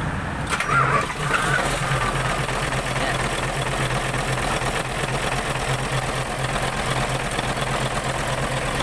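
Freshly overhauled Isuzu 10PE1 V10 diesel engine firing up about half a second in, then idling steadily. It starts easily rather than hard, the sign that its crankshaft, camshaft and injection pump timing are right.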